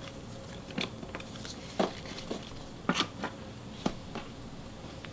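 Trading cards and their pack wrappers being handled on a table: four sharp snaps about a second apart, with light crinkling in between.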